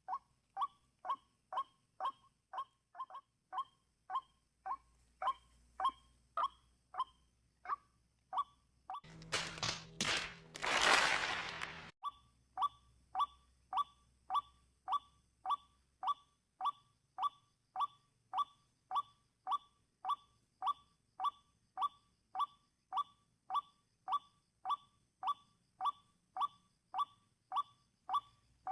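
White-breasted waterhen call, a short note repeated evenly about twice a second, from a recording played as a trapping lure. About a third of the way in, a loud burst of noise covers it for some three seconds.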